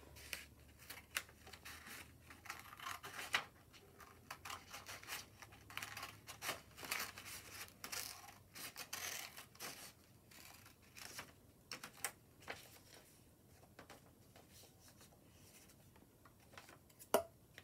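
Small scissors cutting through a sheet of paper: a run of irregular short snips with crisp paper rustling between them.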